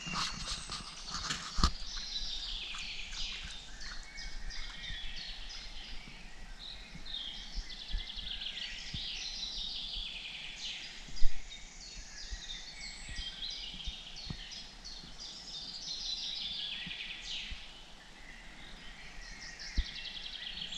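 Several songbirds singing together, overlapping chirps and fast trilled phrases, with a few clicks near the start and one sharp knock about eleven seconds in.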